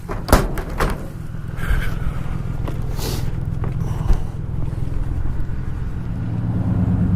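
Truck engine running steadily, with a few sharp clicks and knocks in the first second and a short rustling burst about three seconds in.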